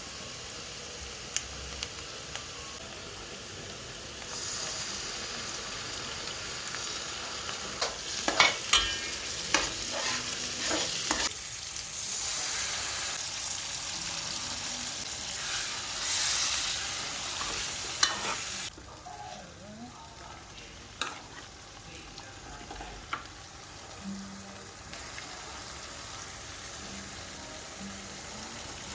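Food sizzling in hot oil in a pan while it is stirred, with sharp clicks and scrapes of the spoon against the pan. The sizzle grows louder for a few seconds at a time, then falls away a little after halfway.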